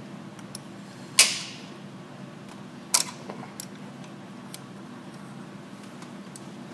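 Water pump pulley bolts on a 3.1 L engine being broken loose with a 10 mm wrench while a screwdriver holds the pulley: a sharp metallic crack about a second in, a smaller one about two seconds later, then a few light clicks of the tools.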